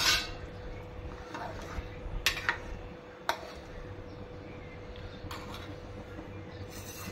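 A stainless steel pot lid set down with a clatter, then a steel ladle stirring a thick curry and clinking against the pot a few times.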